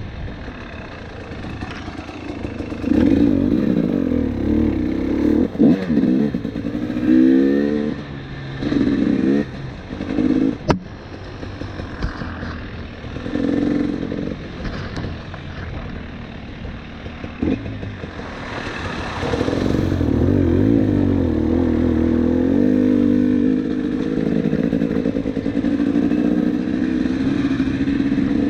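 KTM 300 TPI two-stroke enduro motorcycle engine being ridden off-road, revving up and down in short bursts of throttle. A sharp knock comes about eleven seconds in, and from about eighteen seconds the engine holds a steadier, louder run.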